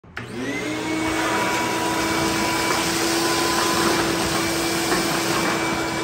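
Ridgid 16-gallon wet/dry shop vacuum switched on: its motor spins up to a steady pitch within about half a second. It then runs steadily with a loud whine and rushing air as the floor nozzle sucks up sawdust and leaf debris.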